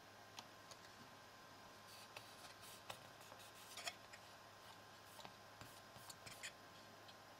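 Faint scattered clicks and light scratching of fingertips handling a Pentium 4 processor and the plastic retention frame around its socket, loudest a few seconds in, over quiet room tone.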